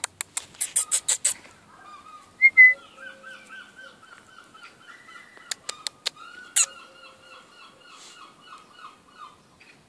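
A bird calling in a long run of quick repeated notes for most of the time, with one louder short high chirp about two and a half seconds in. A quick series of sharp clicks comes at the start.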